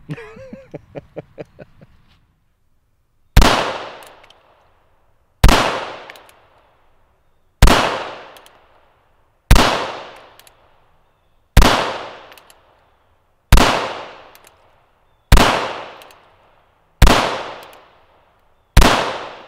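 Nine shots from a CZ vz.38 (P39) .380 ACP double-action-only pistol, fired slowly at about one shot every two seconds. Each is a sharp crack that rings out for about a second.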